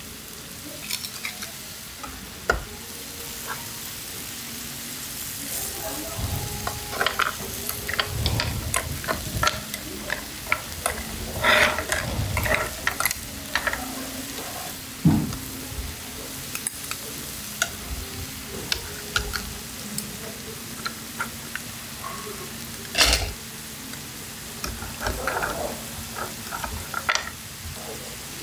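Seafood, sliced beef and vegetables sizzling on a hot flat griddle, a steady hiss. It is broken by scattered clicks and taps and a few louder knocks as the food is handled.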